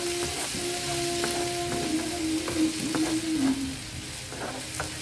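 Diced potatoes frying in avocado oil in a cast-iron skillet, sizzling steadily while a spatula stirs them, with scattered scrapes and taps on the pan. A low steady tone sounds underneath until shortly before the end.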